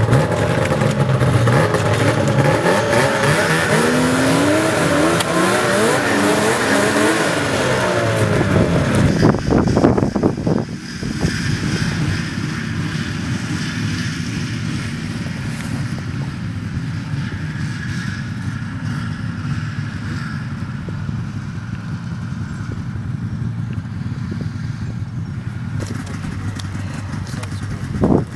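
An engine revving, its pitch rising and falling again and again for the first nine seconds or so. After a break about ten seconds in, an engine runs on steadily.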